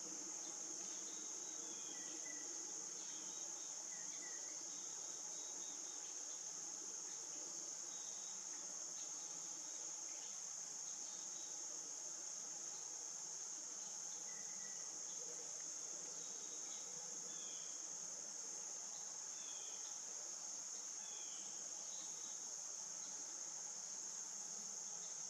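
Steady, high-pitched insect chorus that holds unbroken throughout, with a few faint short chirps now and then.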